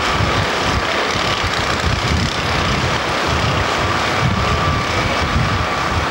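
Wind buffeting the camcorder microphone: a steady hiss with irregular low rumbling gusts, over a faint steady high tone.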